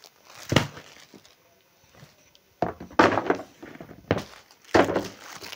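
Plastic-wrapped suit-fabric packs and their boxes being handled: a few separate bursts of plastic crinkling and dull knocks as packs are picked up and set down.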